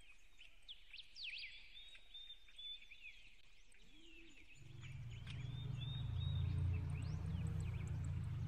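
Small birds chirping repeatedly in quick, short calls. About halfway through, a low rumble fades in and becomes the loudest sound.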